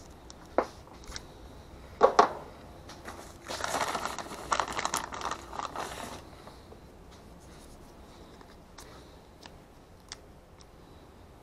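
Handling noise from hands working a small black plastic device with a furry microphone windscreen: a click, then two sharp clicks about two seconds in, followed by a couple of seconds of crinkly rustling, and a few faint ticks near the end.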